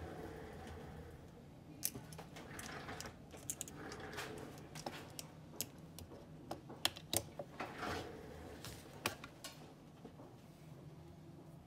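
Irregular sharp clicks and light clatter of small hard objects being handled, most of them between about two and nine seconds in, over a faint low steady hum.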